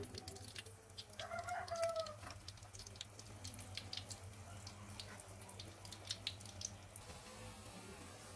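A chicken calls once, a single drawn-out call about a second long, over scattered light clicks and ticks that stop near the end.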